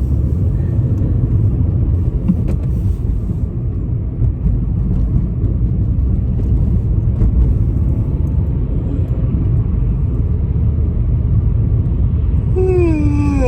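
Steady low rumble of road and engine noise inside a moving car's cabin. Near the end a person's big yawn trails off in a voiced sound that slides down in pitch.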